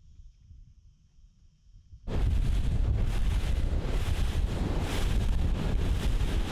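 Wind buffeting the microphone and rushing noise of a bass boat running fast over the water. It starts abruptly about two seconds in, after a faint low rumble, and stays loud.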